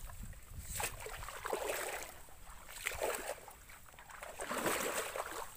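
Wading through shallow, weedy water: a few slow sloshing steps, each a swish of water about a second long.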